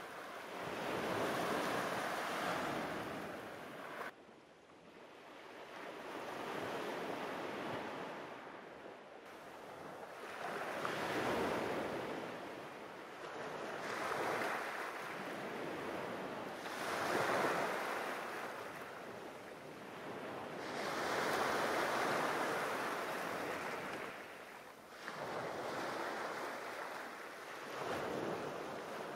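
Small waves breaking and washing up a pebble beach, swelling and fading in surges every few seconds. One surge cuts off abruptly about four seconds in.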